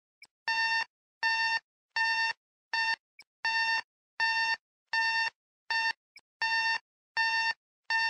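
Electronic alarm clock going off: a steady single-pitched beep repeating about every three-quarters of a second.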